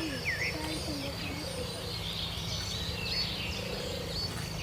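Many small birds chirping and twittering together, the calls overlapping, over a steady low rumble.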